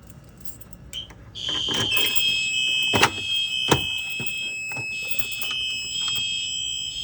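Fire alarm system going into alarm: after about a second and a half, several fire alarm horns start sounding together in high-pitched, steady tones. A couple of sharp clicks come about halfway through.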